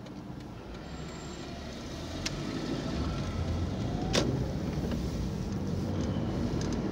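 Car engine and road noise heard from inside the cabin, growing louder as the car pulls away from a junction and picks up speed. A faint click about two seconds in and a sharper click about four seconds in.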